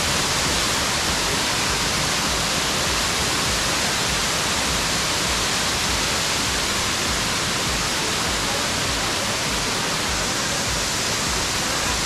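Steady, unbroken rush of a waterfall pouring down rocky tiers.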